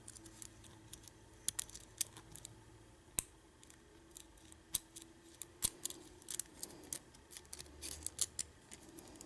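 Small metal tools clicking and scraping against a brass deadbolt lock cylinder, in many irregular, sharp, light clicks.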